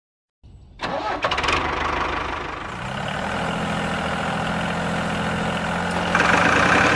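An engine starts about a second in, with a few quick clicks, then settles into a steady, even running note that gets louder near the end.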